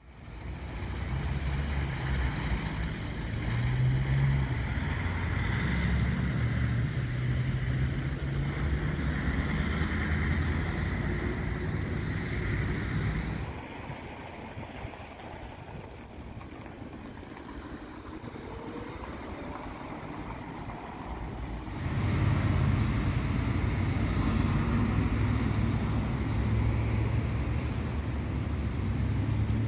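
Outdoor urban ambience: a low rumble of passing road vehicles with wind on the microphone. It drops suddenly to a quieter hush for several seconds midway, then comes back just as loud.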